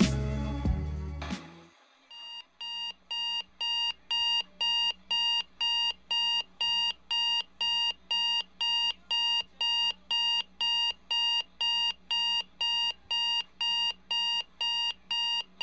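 Digital bedside alarm clock beeping: a shrill electronic beep repeated about twice a second, starting about two seconds in as the music ends.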